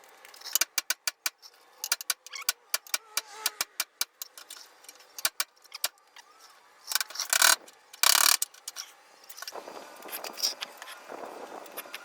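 A run of sharp, irregular metallic clicks and rattles, then two louder bursts of scraping noise about seven and eight seconds in, followed by a rougher clatter.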